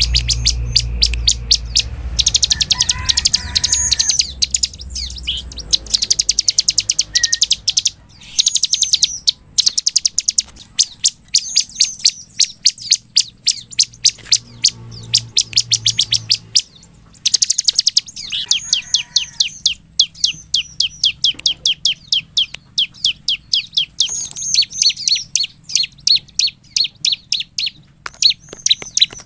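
Bar-winged prinia (ciblek) in full song: long runs of rapid, sharp, high-pitched repeated notes, broken by brief pauses. A faint low rumble sits under it near the start and again around the middle.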